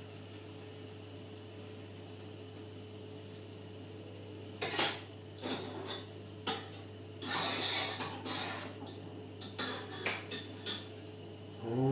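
Pots, pans and cooking utensils clanking and knocking on a kitchen hob, the loudest clank about five seconds in, followed by several more knocks and clinks, over a steady low hum.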